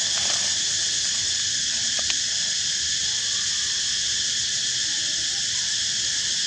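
Steady high-pitched drone of an insect chorus, unchanging throughout, with a faint click about two seconds in.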